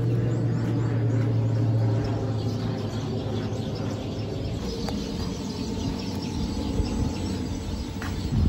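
Small birds chirping over a steady low hum and rumble, the hum strongest for the first two seconds.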